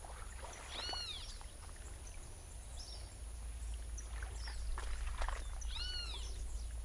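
Outdoor ambience with bird calls: a loud arched call about a second in and again near six seconds, with a few short chirps between. Under them run a steady high-pitched whine and a low rumble.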